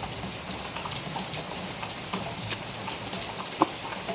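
Rain pattering steadily, with scattered drops ticking and one sharper click about three and a half seconds in.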